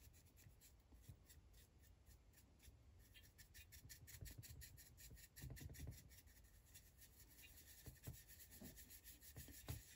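Faint rubbing of a soft-bristled brush working weathering powder into the plastic body of an HO-scale model tank car.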